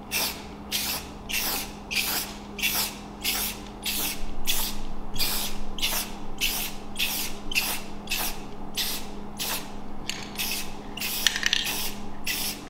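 Aerosol can of black spray primer hissing in short, quick bursts, about two a second, with one longer spray partway through, as a base coat is sprayed on.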